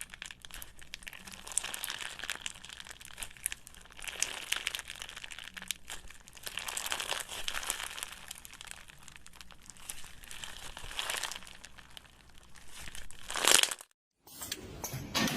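Crackly, crinkling noise of a crunchy material being stirred and mixed, coming in uneven waves and growing louder just before it cuts off suddenly near the end. A different steady hiss starts right after the cut.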